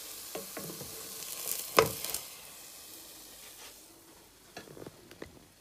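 Food sizzling in a non-stick frying pan as a wooden spatula lifts it out. There is one sharp clack of the spatula against the pan a little under two seconds in, then the sizzle fades and a few light taps follow.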